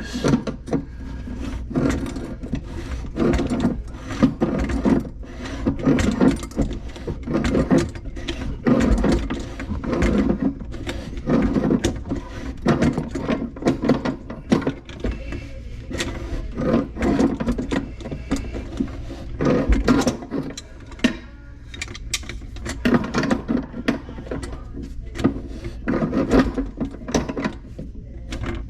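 Irregular clicks, knocks and clatter of hands and tools working on plastic drain pipe and fittings.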